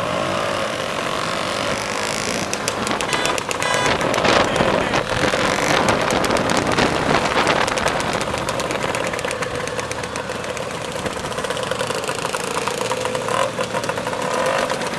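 Many small scooter engines running together as a pack of scooters rides slowly in traffic. A rapid crackle from the engines and exhausts is loudest from about two to eight seconds in.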